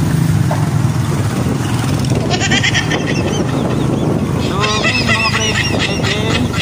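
Motor scooter engine running steadily in slow street traffic. About two seconds in, a busy run of high, quick honking calls begins and grows thicker past the middle.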